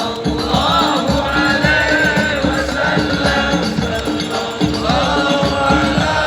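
Sholawat devotional song sung by many voices together, with percussion keeping an even beat.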